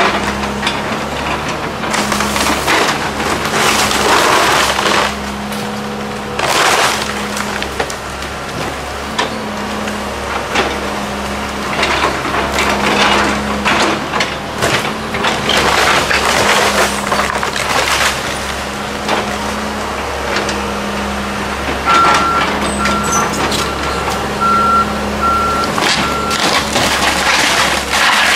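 John Deere 110 excavator's diesel engine running steadily while its bucket tears into a wood-frame house, with repeated cracking, crunching and splintering of wood framing and siding. Past the middle an alarm beeps about six times at an even pace.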